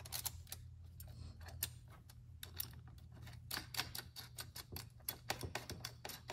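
Faint small metal clicks and ticks of steel spacers and nuts being handled and threaded onto the mounting studs of a brake booster bracket, growing busier about halfway through, over a low steady hum.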